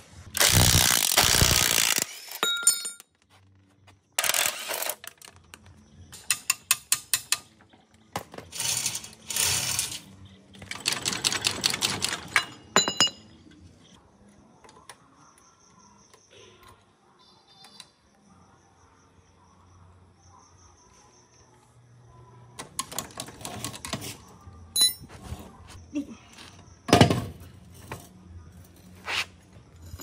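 Workshop handling of small metal parts and tools. Several loud bursts of hiss lasting a second or two, runs of rapid clicking, and scattered metallic clinks and knocks, with quieter stretches in the middle.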